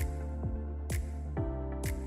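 Electronic background music with a steady beat: held synth chords over a kick drum, with a crisp hit about once a second.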